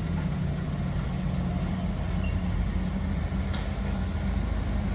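Heavy truck engine running with a steady low rumble; no horn sounds.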